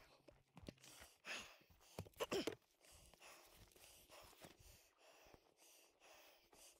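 Water splashing and sloshing in lakeshore shallows as a loaded canoe is pushed off: a few short swishes, the loudest about two seconds in, with small knocks in between.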